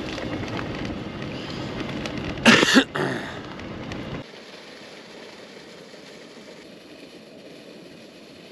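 Riding noise from a bicycle on the move: wind on the microphone and tyre rumble, with a brief loud sound about two and a half seconds in. Just after four seconds the rumble stops abruptly, leaving a quieter hiss.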